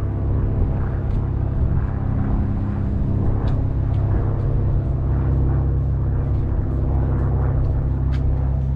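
Car driving along: a steady, loud, low rumble of engine, road and tyre noise, with a few faint clicks.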